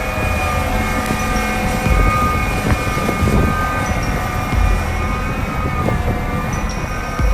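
Heavy diesel machinery running steadily with a whine in several tones, and a deep thud about every two to three seconds.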